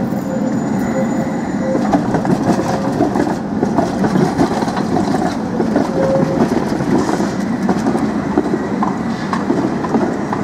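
Articulated electric tram running past close by, its steel wheels rumbling and clicking over the rail joints and track crossings. The clicks come more often in the second half.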